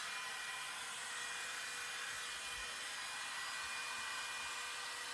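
A very small hair dryer running steadily, a rush of blowing air with a faint steady motor hum.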